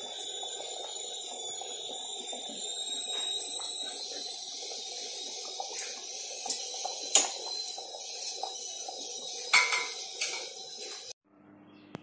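Goat head curry boiling in an open aluminium pressure cooker pan: a steady, dense bubbling over a faint high-pitched whine, with a few sharp clicks in the second half. It cuts off suddenly about eleven seconds in.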